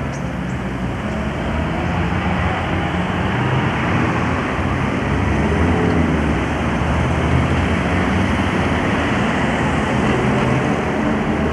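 Road traffic at a town roundabout: a steady rumble of car engines and tyres as cars drive round.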